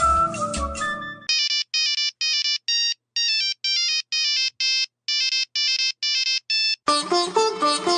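Old mobile phone ringtone: a simple electronic melody of short, clipped beeping notes with brief silences between them, lasting about five seconds. A fuller tune ends just before it, and another begins near the end.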